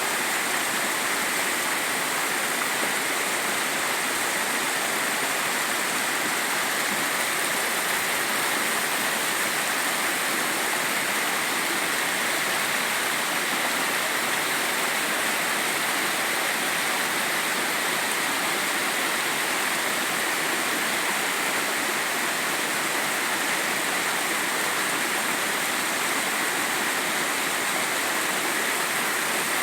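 Mountain stream rushing steadily over rocks, a constant even splashing with no pauses or changes.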